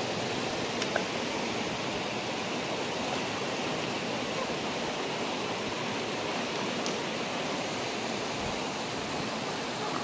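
Mountain stream rushing steadily over rocks: an even hiss of flowing water with no distinct splashes.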